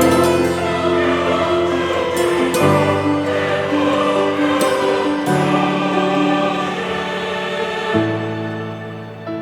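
Background music: a choral piece with sustained sung chords that change every second or two.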